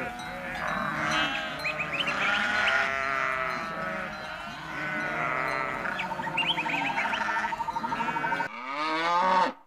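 A flock of sheep bleating, many calls overlapping at once, with one single bleat standing out clearly near the end.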